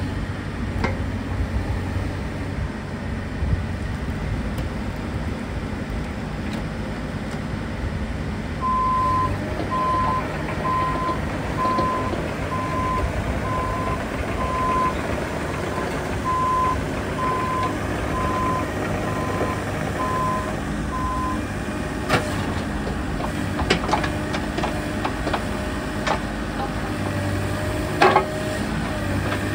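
Bobcat E50 mini excavator's 48 hp diesel engine running under hydraulic load as the boom and bucket work. From about a third of the way in, an alarm beeps at one pitch about once a second for roughly twelve seconds. Several sharp metal clanks follow in the last third, the loudest near the end.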